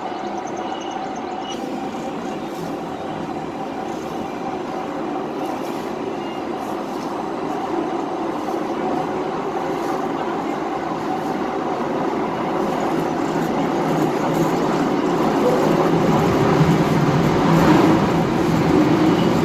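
Small children's ride train running along its elevated track, a steady rumble that grows louder over the last several seconds as the train comes near.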